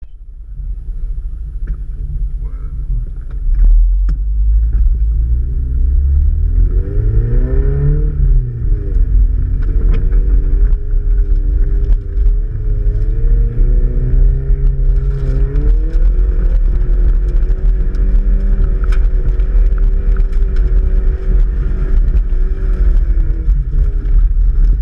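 BMW 3 Series (318) car engine running under load on rough ground, revving up and down about a third of the way in and again past the middle, then holding a steady pitch, over a heavy low rumble. It gets louder at about three and a half seconds.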